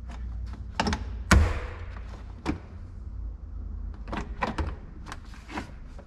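Hard plastic door sill trim panel of a Chevrolet Silverado cab being pushed and knocked down over new carpet to snap its clips in: a scatter of plastic knocks and clicks, the loudest about a second in. It is a tight fit and the panel is not seating.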